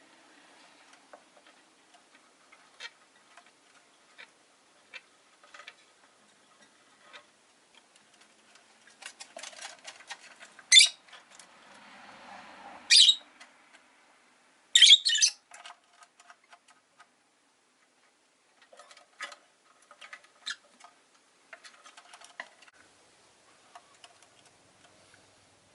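Rosy-faced lovebirds in their cage: scattered light ticks and scratches, with three loud, shrill, short calls in the middle, the third a quick double call.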